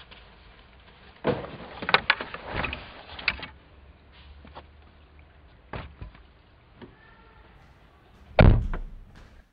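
Things being dropped and shuffled into a car's boot, a cluster of knocks and clatter, then the boot lid slammed shut with one heavy thud near the end, the loudest sound.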